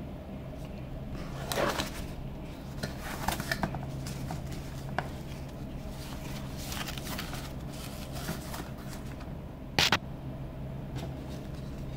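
Rustling of protective wrapping being handled as a touch-panel display board is unwrapped, with scattered light clicks and taps, and one sharp knock about ten seconds in. A steady low hum runs underneath.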